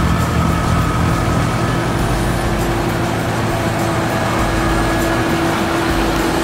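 Caterpillar 950M wheel loader's diesel engine running hard with its front-mounted Larue snowblower throwing snow into a truck trailer: a steady, loud machine noise. A droning tone in it grows stronger about four seconds in.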